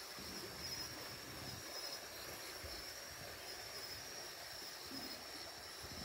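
Night river ambience: an even wash of flowing water with a steady high insect chirring above it, and a few soft low knocks from wading and handling the net.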